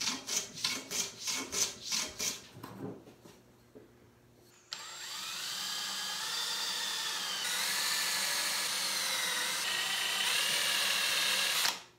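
A run of quick, short hand-plane strokes on a small walnut piece. Then a cordless drill starts almost five seconds in and bores into a walnut box blank to clear the waste: a steady motor whine that sags in pitch now and then under load, and stops suddenly near the end.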